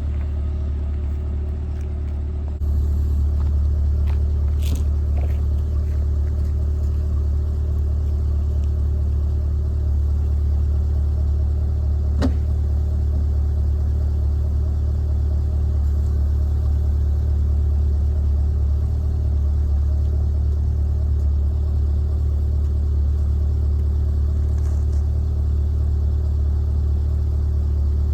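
Chevrolet C8 Corvette's V8 idling steadily, with a low, even rumble. It gets slightly louder a little over two seconds in, and a sharp click comes about twelve seconds in.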